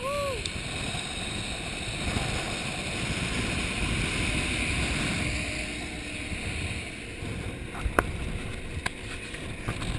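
Wind rush on the microphone and road noise from a moving scooter, swelling for a few seconds as a coach bus passes close alongside. A few sharp knocks near the end.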